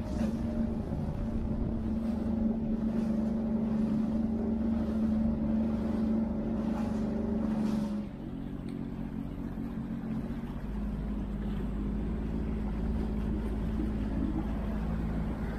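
Jet ski engine running at a steady pitch while under way on the water. About eight seconds in it eases off and runs on quieter, with more low rumble.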